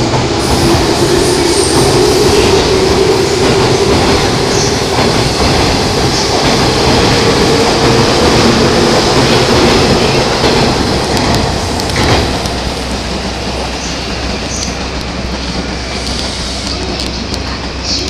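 JR 185 series electric train pulling out and passing close by: a steady rumble of wheels on rail with clicking over the rail joints, and a low hum that rises slightly in pitch as it gathers speed. There is one sharp click about twelve seconds in, and after it the noise drops as the train runs off.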